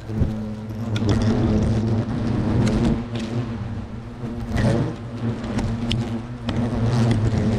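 Asian hornets (Vespa velutina) buzzing right at the camera microphone, a low wingbeat hum that swells and fades as they pass, with scattered sharp taps of hornets landing on and striking the camera. The workers are defending their disturbed nest.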